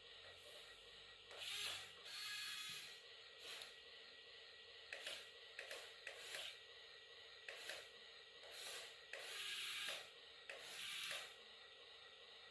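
Small electric motors and plastic gearboxes of radio-controlled model construction vehicles whirring and grinding in a series of short stop-start bursts.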